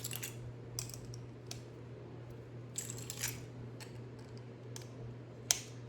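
Plastic Lego pieces being handled and pressed together: scattered small clicks and brief rustles, the sharpest click about five and a half seconds in, over a faint steady low hum.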